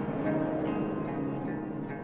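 Soft background score: held pitched notes with a bell-like mallet timbre, without a strong beat.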